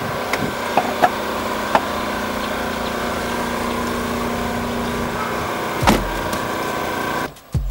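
Car engine idling steadily, heard from inside the cabin, with a few clicks as the passenger door is opened and a heavy thump about six seconds in as the door is shut.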